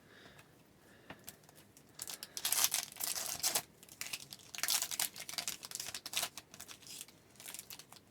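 Plastic wrapper of a hockey-card pack being torn open and crinkled: quiet at first, then crinkling rustles about two seconds in and again near the middle, with smaller crackles after.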